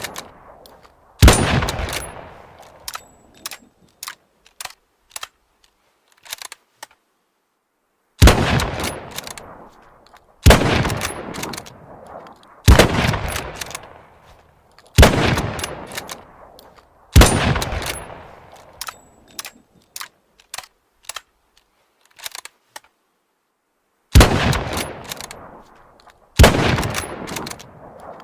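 Mosin-Nagant bolt-action rifle firing single shots, each followed by a rolling echo of about a second and a half. One shot comes near the start, then a run of five about two seconds apart after a pause of several seconds, then two more near the end. Small metallic clicks of the bolt being worked fall between the shots.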